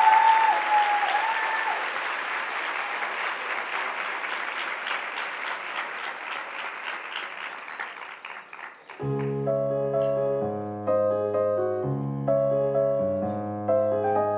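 Audience applauding, with a held high-pitched whoop over it at the start, the clapping slowly dying away. About nine seconds in it cuts abruptly to slow piano music playing sustained chords.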